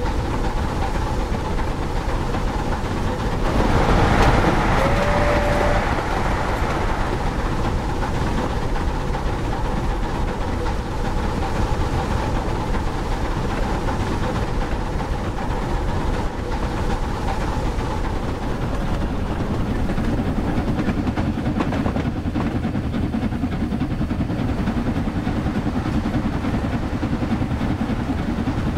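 Sound-fitted Hornby model Bulleid Pacific steam locomotive running, with a steady rumble of steam-engine running sounds and the wheels on the track. A louder, brighter swell comes about four seconds in, with a short high tone in the middle of it. The low rumble grows heavier about twenty seconds in.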